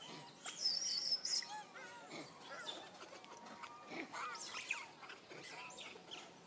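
Many short, high chirping calls overlapping throughout, with a louder, shriller cluster about a second in.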